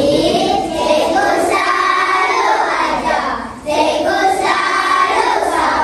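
A group of children singing together in unison, in two phrases with a brief break about three and a half seconds in.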